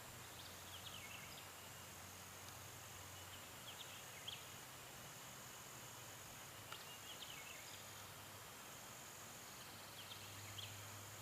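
Faint woodland morning ambience: a bird sings a short chirping phrase four times, about three seconds apart, over a steady high insect drone and hiss.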